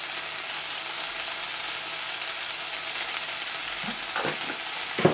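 Sliced onions frying in oil in an enamelled cast-iron pot: a steady sizzle, with a few short knocks near the end.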